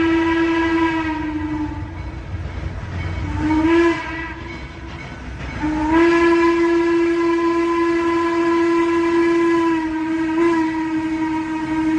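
Train horn sounding in blasts: a held note that dips slightly in pitch and stops about two seconds in, a short blast near four seconds, then a long blast from about six seconds to the end, over a low rumble of the train.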